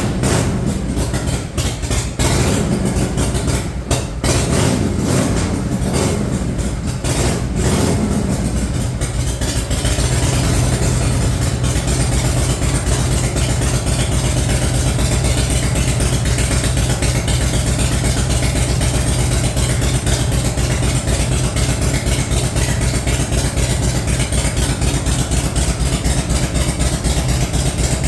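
Harley-Davidson V-twin chopper engine just fired after a hard kickstart, with uneven throttle blips for the first several seconds, then settling into a steady idle. The owner says it generally starts a lot easier than that.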